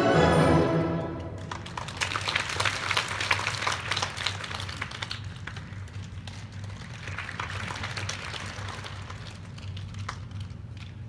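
An orchestra's closing chord dies away about a second in, followed by audience applause.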